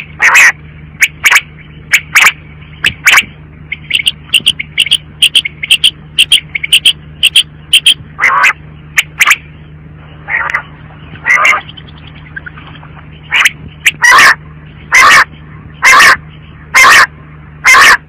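Female common quail calling over and over with short, loud calls. They come about one a second, with a quick run of three or four a second around the middle. A steady low hum runs underneath.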